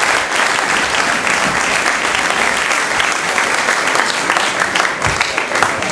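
Audience applauding: many people clapping steadily in a large hall.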